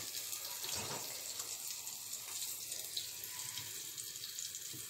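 Battered onion rings deep-frying in hot oil: a steady sizzling hiss with light crackles.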